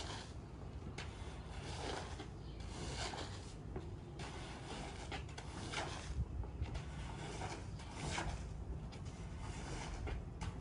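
Rubber floor squeegee dragged in repeated short strokes, about one or two a second, through a soaked, soapy shag rug, scraping dirty water and foam out of the pile.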